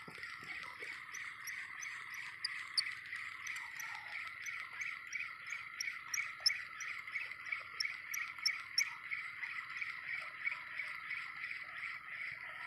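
Spinning reel being cranked to retrieve a lure: a steady whirr with an even rhythmic pulse of a few beats a second and light ticking.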